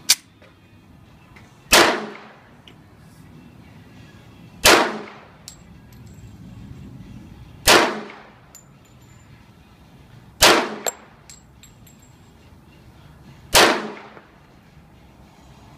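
Five pistol shots from a custom 1911 firing 185-grain hollow-point loads, spaced about three seconds apart. Each is a sharp crack with a short echo trailing off.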